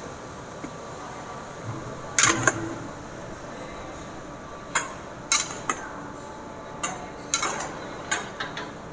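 Cooking utensil clinking and scraping against a pan in irregular strikes, the loudest about two seconds in and several more in quick succession in the second half.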